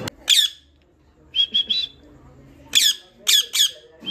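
Rose-ringed parakeet calling: one loud shrill screech just after the start, a quick run of three short chirps about one and a half seconds in, then three more loud screeches near the end.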